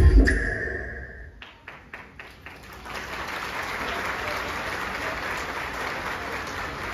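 Dance music cuts off just after the start, then a few separate claps grow into steady audience applause.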